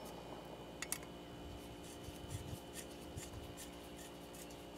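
Faint light metal clicks and scraping from a screwdriver worked against a screw in a rusty steel bracket, with two small clicks about a second in.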